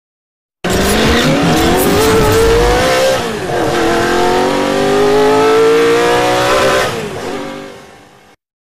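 Sports car engine revving hard as it accelerates, its pitch climbing, dropping once about three seconds in as at a gear change, climbing again, then fading away near the end.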